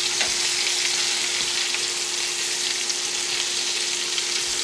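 Potato cakes frying in hot oil in a cast-iron skillet: a steady sizzle, with a few faint knocks of the spatula against the pan as the cakes are turned.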